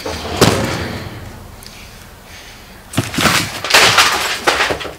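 A mobile phone put down hard on a wooden desk: a sharp thump about half a second in that fades quickly. From about three seconds in comes a cluster of louder knocks and rustles.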